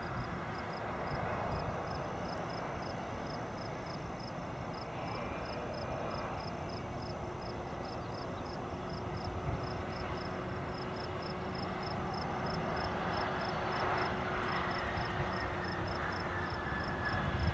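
Distant Bombardier CRJ regional jet's engines running steadily as it lands and rolls out, with a faint falling whine near the end. Over it a high-pitched chirp repeats about three times a second.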